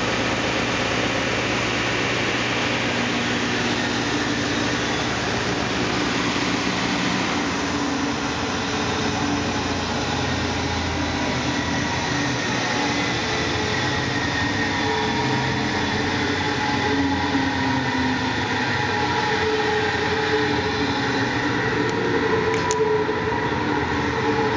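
Northtech 24-inch planer sander running, its helical planer head driven by a 20 hp motor; a steady, loud machine noise whose tone changes about seven seconds in, with a brief click near the end.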